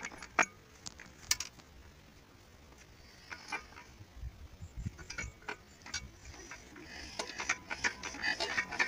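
Single-cylinder diesel pumpset engine being hand-cranked with its starting handle: scattered metallic clicks and clanks that come quicker and louder near the end as the cranking builds up.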